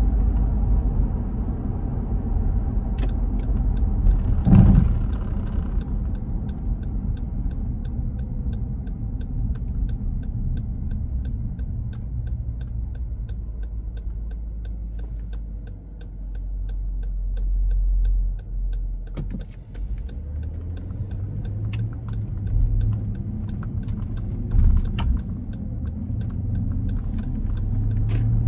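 Car cabin: engine and tyre rumble while driving, with a thump about five seconds in. Through the middle stretch a turn-signal relay ticks evenly about twice a second while the car waits at a light, then the engine swells again as it pulls away.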